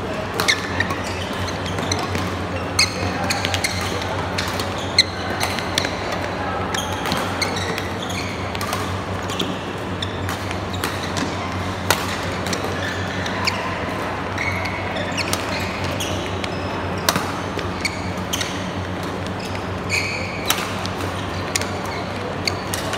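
A badminton doubles rally: rackets strike the shuttlecock in sharp cracks roughly a second apart, with a few short shoe squeaks on the court mat, over a steady low hum.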